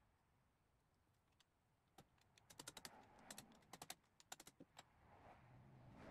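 A quick, irregular run of faint, light clicks, like metal parts or a hand tool working on a milling machine's head while it is adjusted for tram.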